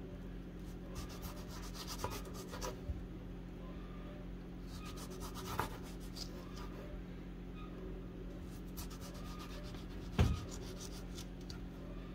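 Kitchen knife sawing through a tomato on a cutting board: faint, scattered clusters of short slicing strokes, with one dull thump about ten seconds in.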